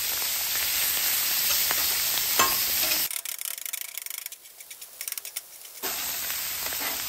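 Chopped ribeye sizzling in beef fat on a hot flat-top griddle, with a steel scraper ticking against the griddle now and then. For about three seconds in the middle the sizzle drops away and quick light taps of the scraper's blade chopping meat on the griddle come through, then the sizzle returns.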